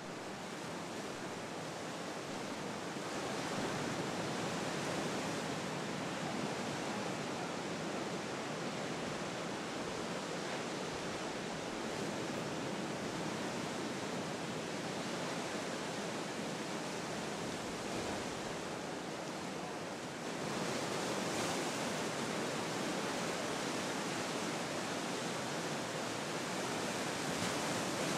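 Ocean surf breaking and washing, a steady rushing noise that grows louder about three seconds in and again about twenty seconds in.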